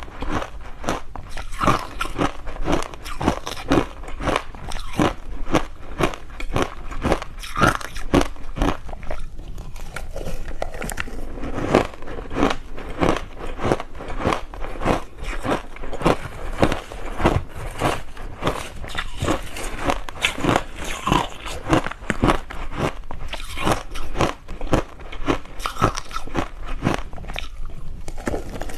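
Crushed ice being bitten and chewed close to the mouth: a dense, continuous run of sharp crunches and crackles, several a second.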